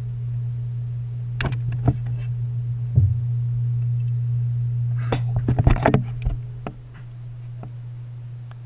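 Steady low hum of a submerged aquarium filter pump, heard underwater through a camera housing, with scattered sharp clicks and knocks and a quick flurry of them about five to six seconds in.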